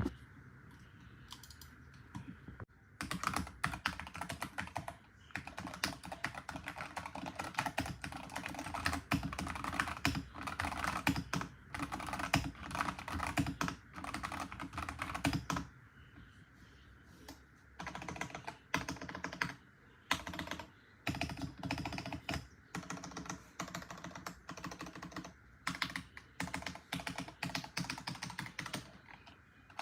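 Typing on a custom mechanical keyboard with Gateron Milky Yellow linear switches and XDA keycaps, its case tape-modded and lined with PE foam: rapid key clacks in long runs. The typing starts about three seconds in and stops for about two seconds just past the middle.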